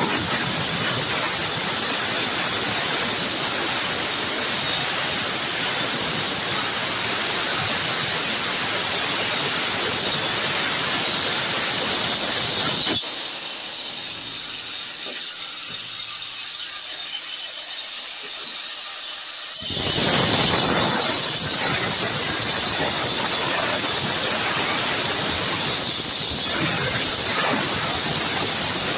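Handheld angle grinder cutting into glazed ceramic wall tile along the joints, with a loud harsh grinding screech, to cut out wrongly laid tiles. About halfway through it is lifted clear and spins free with only a thin high whine for several seconds, then bites into the tile again.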